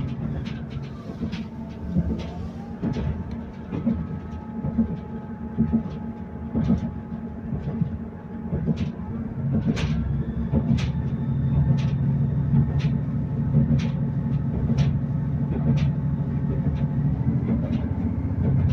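Diesel passenger train heard from inside the carriage while running: a steady low rumble of engine and wheels on rail, with a whine that rises a little after two seconds and then holds. In the second half it grows louder, and sharp clicks come about once a second as the wheels run over the track.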